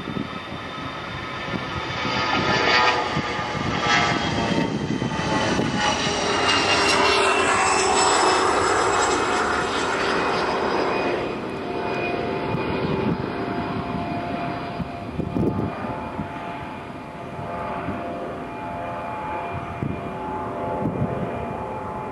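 Jet airliner engines. The sound builds to its loudest about seven to ten seconds in, with a high whine falling in pitch as the aircraft passes, then eases into a quieter, steadier engine whine.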